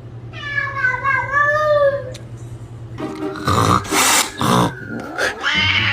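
A domestic cat meowing: one long, wavering meow, then louder noisy bursts and a second call that rises and falls near the end.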